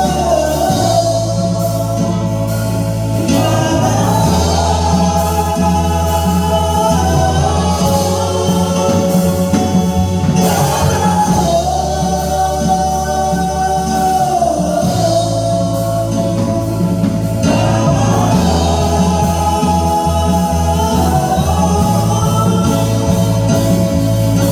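Gospel singing with instrumental accompaniment: sustained sung lines over a steady bass that changes chord every few seconds.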